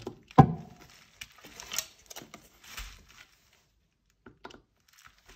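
Phillips screwdriver turning out a screw from a combat helmet shell, with hand-handling noise: one sharp knock about half a second in, then scattered small clicks and scrapes that thin out toward the end.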